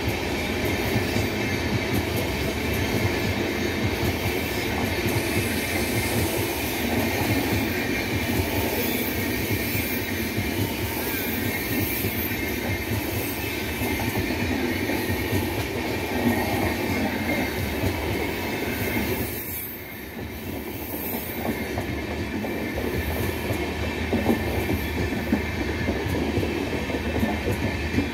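LHB passenger coaches rolling slowly past, their steel wheels running on the rails in a continuous noise that dips briefly about twenty seconds in.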